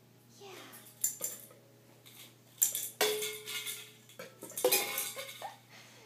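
Empty aluminium drink cans and plastic cups clattering and clinking on carpet as they are knocked over and set back up, in a few separate sharp knocks about one, two and a half, three and five seconds in.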